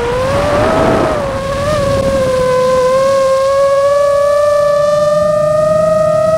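Nazgul Evoque F6 FPV quadcopter's brushless motors and propellers whining. The pitch dips at the start, then rises slowly and steadily, with a rush of air over the first couple of seconds.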